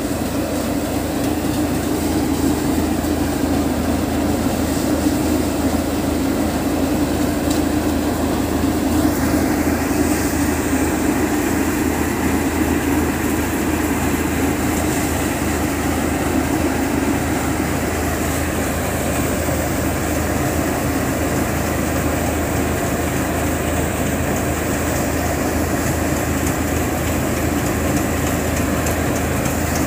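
Engine-driven paddy thresher running steadily, a constant mechanical drone with a steady hum as rice sheaves are fed into its drum.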